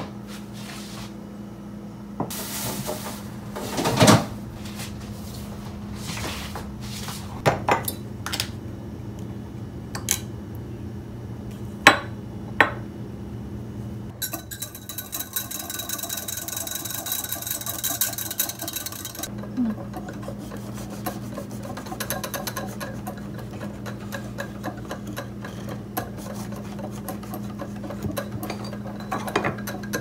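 Kitchen clatter: scattered knocks and clinks of things being set down, then a few seconds of hiss. After that comes a spoon stirring quickly in a ceramic mug of cream, with fast clicking against the sides. A steady low hum runs underneath.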